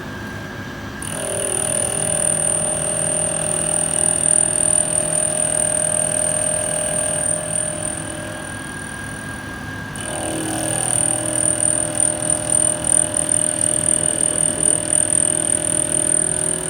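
CNC-converted Sieg SX2 mini mill facing aluminium with a single-insert 50 mm face mill, over a steady high whine. The cut gets louder about a second in, eases off around seven seconds in, and comes back louder about ten seconds in.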